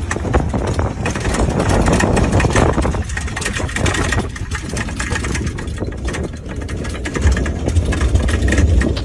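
Motor vehicle engine running steadily, a continuous low rumble.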